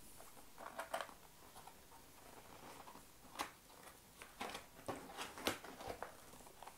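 Faint rustling and light knocks of keyboard packaging being handled as the inner box is opened: scattered short clicks and brief scrapes of cardboard and plastic.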